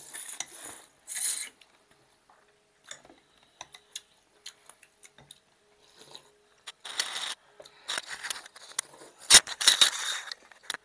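People eating noodle soup: short slurps of noodles and broth, with chopsticks and forks clicking and scraping against glass bowls. The loudest sharp knock comes near the end.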